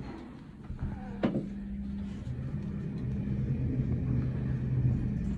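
Otis lift car travelling between floors: a click about a second in, then the drive's steady low hum, growing slightly louder as the car moves.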